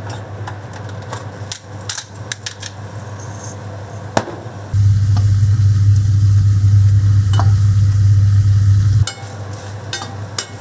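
Potato wedges frying in a pan, with crackling and the clicks and scrapes of a spatula turning them. For about four seconds in the middle a loud, steady low hum comes in and cuts off suddenly.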